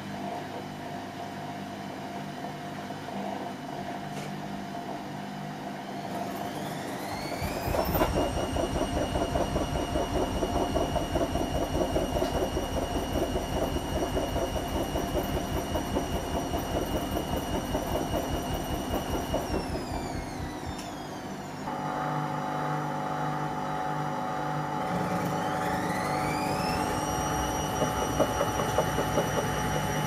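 Whirlpool front-loading washing machine on spin: the motor whine rises over about two seconds as the drum speeds up, then holds steady over a fast rumble before winding down. After a sudden change about two-thirds of the way through, the drum spins up again, its whine rising to a steady pitch at a higher spin setting.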